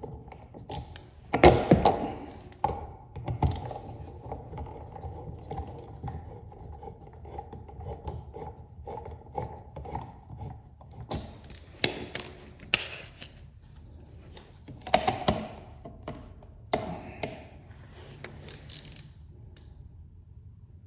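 Scattered knocks, taps and clicks of hand work on an electrical outlet and its wall box, the loudest thumps about one and a half seconds in, with more clusters later on.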